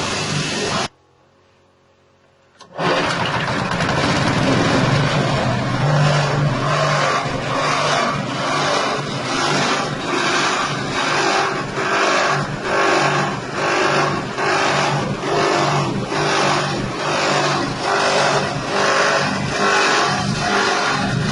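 Corn-cob grinding mill driven by its 6.5 hp engine, running loudly under load with an even pulsing about three times every two seconds. About a second in the sound drops out for nearly two seconds, then comes back at full level.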